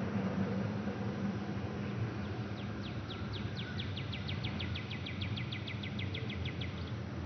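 A bird's trill: a run of quick, evenly spaced falling chirps, about six a second, starting about two and a half seconds in and lasting some four seconds, over a low steady hum.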